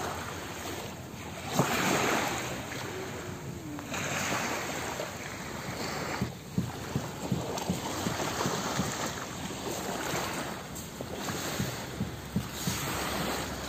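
Sea surf and wind buffeting the phone's microphone: a rushing noise that swells and eases every few seconds, with light low thumps of wind on the mic.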